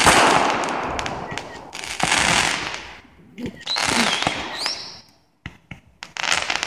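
Fireworks going off: loud hissing whooshes of shots firing upward, repeating about every two seconds, each fading over a second. A short rising whistle comes about four and a half seconds in, and sharp pops follow before a last whoosh near the end.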